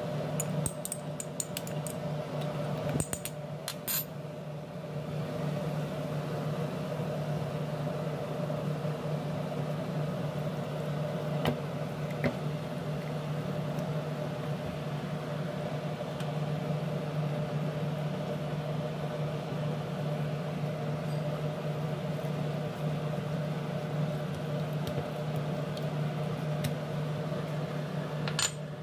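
A steady mechanical hum, with a few light clinks of a metal spoon against a small ceramic dish in the first few seconds as seasoning is scooped out, and a couple more taps later.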